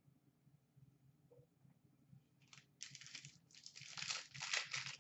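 Plastic-foil wrapper of a trading-card pack crinkling and tearing as it is opened by hand, in irregular rustling bursts that start about halfway in and grow louder.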